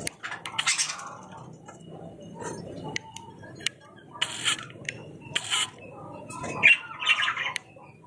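A flock of budgerigars chattering, with short scratchy chirps and squawks coming in bursts, the loudest cluster near the end.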